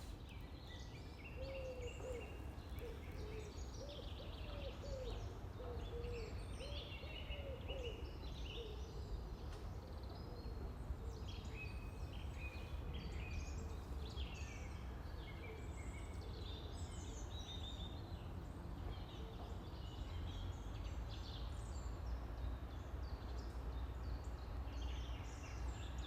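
Several small songbirds chirping and singing in quick short phrases over a steady low rumble. For the first several seconds a lower, wavering call repeats beneath them.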